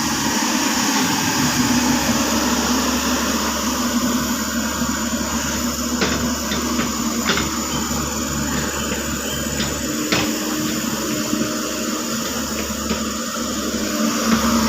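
307.5 excavator's diesel engine running steadily, with a few sharp knocks about six, seven and ten seconds in.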